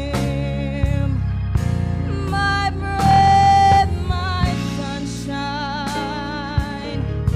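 Gospel music: a held, wavering melody line over a steady bass, with sharp drum hits every second or so.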